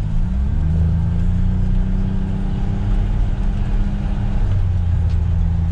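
Utility vehicle's engine heard from inside its cab, picking up speed near the start and then running at a steady pitch as it drives along.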